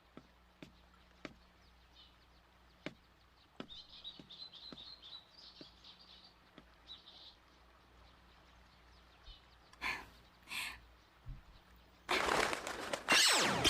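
Faint birds chirping, with scattered soft clicks. About ten seconds in come two brief rushing sounds, and near the end a loud sudden rush of sound that falls in pitch.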